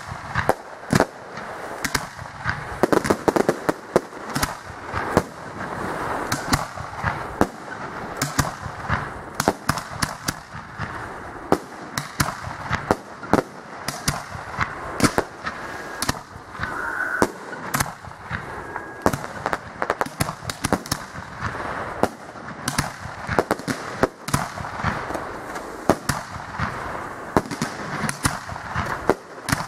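Aerial fireworks bursting in quick, irregular succession, sharp bangs following one another with a constant crackle between them.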